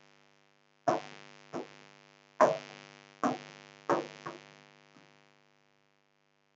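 Pen or fingertip tapping an interactive whiteboard screen, about seven sharp knocks at an uneven pace, each followed by a short ringing decay from the board, stopping about five seconds in.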